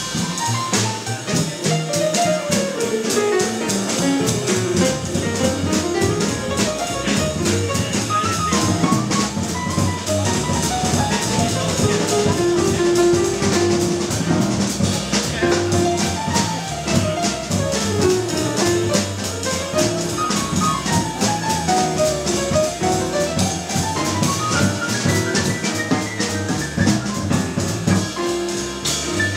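Live acoustic jazz: grand piano playing fast runs that climb and fall, over a drum kit with busy cymbals and an upright double bass.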